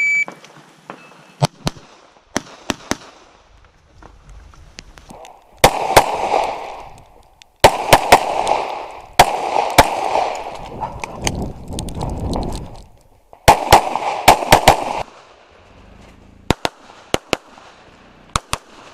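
A shot-timer start beep, then a stage of rapid pistol fire: many sharp shots in quick pairs and strings, with a rushing noise under some of the strings.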